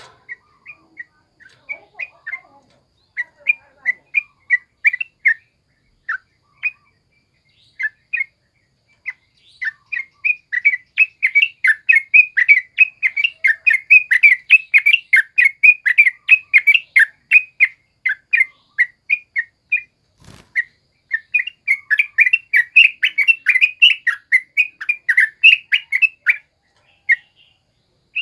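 Caged yellow-vented bulbul (trucukan) singing: scattered short, sharp notes at first, building into long, rapid chattering runs, with a brief pause about twenty seconds in.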